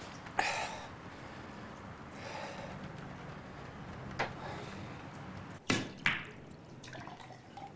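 A couple of breathy exhales, then two sharp clicks about half a second apart: a cue striking a carom billiard ball and the balls colliding.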